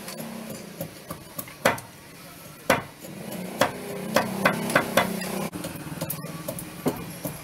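Hand hammer or mallet blows on the timbers of a wooden boat hull: a dozen or so sharp, irregular knocks, the loudest near two seconds in and a quicker run of strikes in the middle, over a steady low hum.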